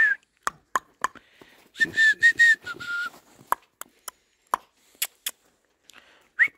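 A person whistling a run of short, quick notes, a few of them sliding upward, with sharp crunches of boots stepping in fresh snow between them.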